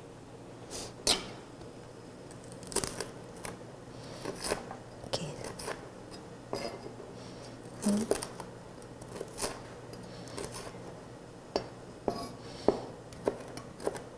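Chef's knife cutting a green chili pepper on a plastic cutting board: irregular sharp taps of the blade striking the board, about one or two a second.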